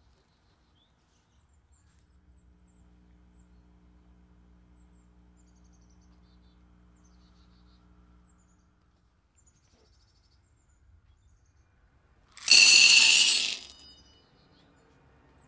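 Dried chickpeas poured into a clear glass bowl: a loud rattling rush lasting about a second, three-quarters of the way in, with the glass ringing briefly after. Before it there are only faint bird chirps and a low hum.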